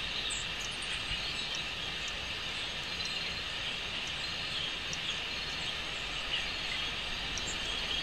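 Steady outdoor ambience: an even high hiss with faint, scattered short chirps.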